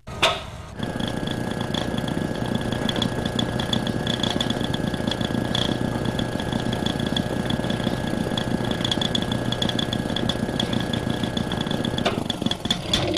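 Science-fiction sound effect from a 1958 sound-effects LP: a machine-like drone, like an engine running, that starts with a sharp burst and runs steadily with a thin high whine over a churning rumble, then cuts off about twelve seconds in.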